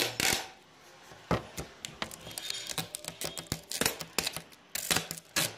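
Irregular clicks, knocks and rustling close to the microphone: handling noise as a cloth hoodie brushes and bumps against the camera.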